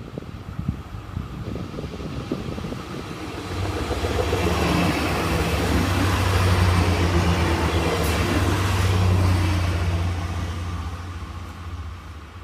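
A train passing by: its noise swells over a few seconds, is loudest in the middle with a steady low hum, then fades away.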